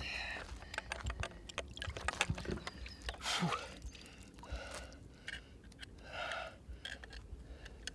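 Water splashing and dripping as a key is rinsed by hand to wash sand off it, with scattered small clicks.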